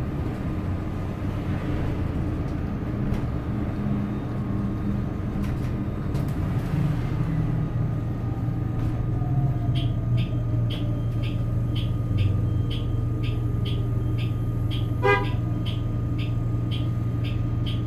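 Inside a city transit bus in slow traffic: a steady drivetrain hum with a whine that falls in pitch as the bus slows. From about ten seconds in there is an even, rapid ticking, about two and a half a second, and a short beep comes a few seconds later.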